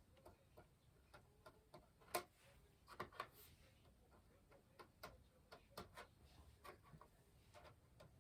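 Faint, irregular small clicks and taps of hands working as glue is spread onto a crochet piece, several a second, with a sharper tap about two seconds in.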